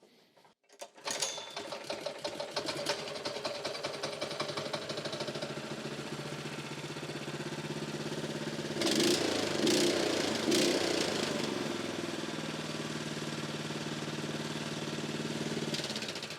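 Honda single-cylinder four-stroke small engine starting about a second in and then running steadily, a little louder for a couple of seconds around the middle. It runs properly now that the carburettor has been cleaned, curing a no-start where fuel was not getting from the carby to the combustion chamber.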